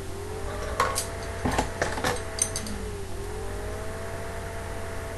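A computer's fan or drive whining, with terrible death noises: a wavering whine whose pitch dips and climbs back about every three seconds. Between about one and two and a half seconds in, a cluster of sharp clicks and rustles from hands working hair and bobby pins close to the microphone.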